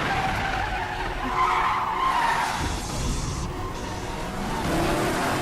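Car tyres squealing and skidding on pavement, with the wavering squeal strongest in the first half and engine noise underneath.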